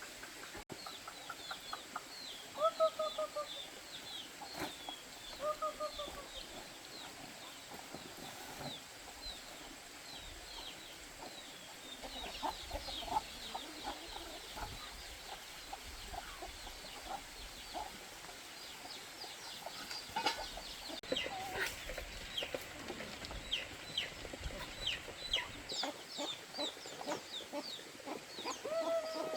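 Chickens calling, with a few lower arched clucks near the start and end, over many quick, high, falling chirps that carry on throughout.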